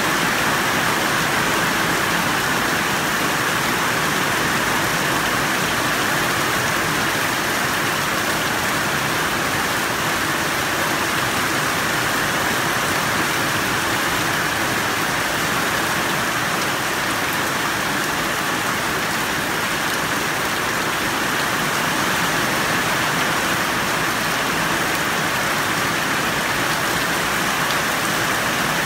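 Heavy rain falling steadily, splashing into rows of water-filled plastic buckets and tubs.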